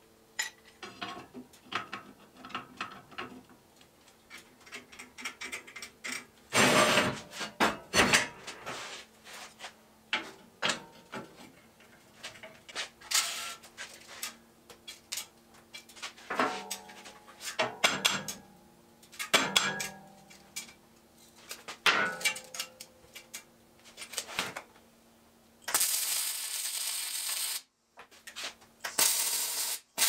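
Steel parts being handled and clamped on a steel table: scattered clanks and clicks, some with a short metallic ring. Near the end a MIG welder crackles in two short bursts.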